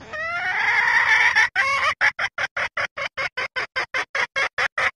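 Female junglefowl mating-solicitation call, used as a lure to draw in a rooster. It begins with a long drawn-out squawk that rises in pitch, then a short second call, then a quick run of even clucks at about five a second.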